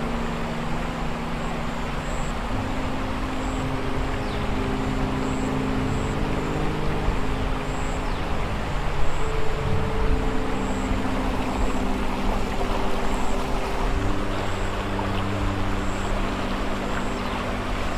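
Creek water rushing over rocks, a steady wash, under a low sustained musical drone whose held notes shift every few seconds.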